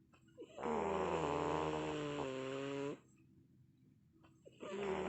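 A woman snoring very loud in deep sleep, each snore a drawn-out pitched, whining note like a yowling cat. One long snore of about two seconds, a pause, then the next snore beginning near the end.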